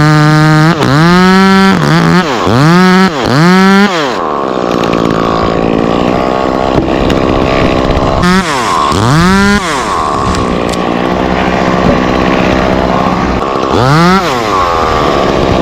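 Stihl two-stroke chainsaw running loud at full throttle, revved up and down several times in quick succession, then pulling down in pitch and running rougher as it cuts into the oak, twice, with a throttle blip between the cuts.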